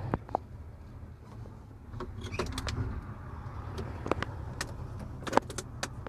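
Steady low hum of the Terex Demag 100-ton crane's engine running, under scattered clicks and rustles of the phone rubbing against clothing.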